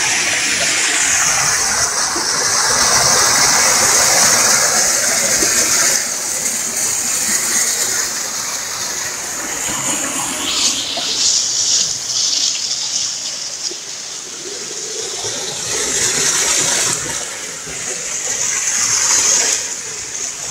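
Waterfall: a loud, continuous rush of falling and splashing water, its tone shifting a few times.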